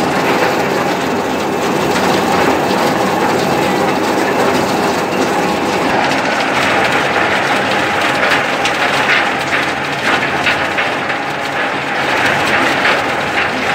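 Arecanut (betel nut) de-husker machine running: a steady mechanical hum under a dense, rattling clatter of nuts and husk being beaten about inside it. The clatter turns sharper and busier about halfway through.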